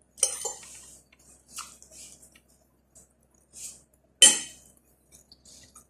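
Cutlery clinking and scraping against a plate while eating, in short separate strokes, with one sharp loud clink about four seconds in.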